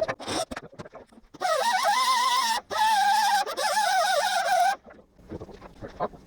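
Angle grinder with a cutoff wheel cutting metal in two passes of about a second and two seconds, its whine wavering in pitch as the wheel loads up in the cut. Before and after, scattered light knocks and clicks.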